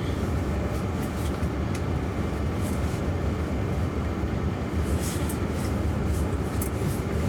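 Steady low road and tyre rumble inside the cabin of a moving Jaguar I-Pace electric car, with a few faint clicks.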